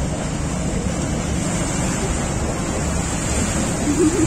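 Waterfront ambience: steady wind on the microphone over a wash of water, with a low hum beneath.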